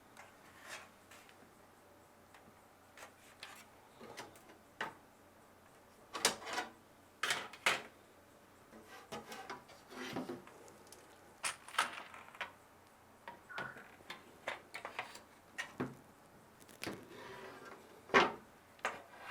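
Irregular clicks, knocks and light rattles of plastic and metal parts being handled: an AIO liquid cooler's radiator and fans being offered up and fitted into a PC case.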